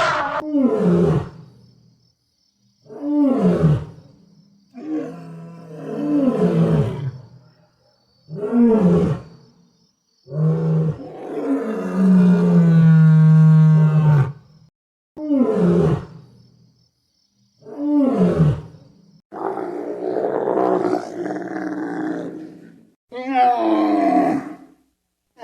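A series of about ten loud animal calls or roars, separated by short silences. Most slide down in pitch, and one long call near the middle holds a steady pitch for several seconds.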